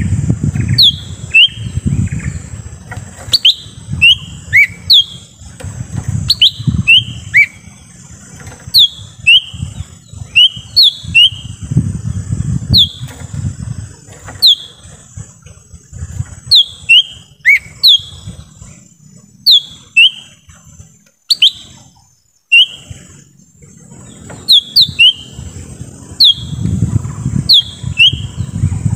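Cucak ijo mini (lesser green leafbird) calling: short, sharp whistled notes that sweep down in pitch, often in quick pairs, repeated about once a second with a brief pause a little past the middle. A low rumble comes and goes beneath, with a steady high hiss.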